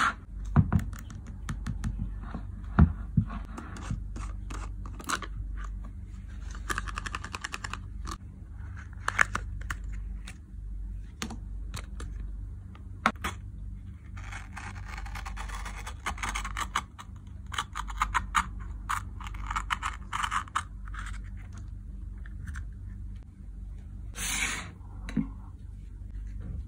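A Nutella jar being handled and opened: the plastic lid and jar click and knock, and a gold foil seal is scratched, crinkled and peeled off with scraping and tearing noises. A short hiss comes near the end.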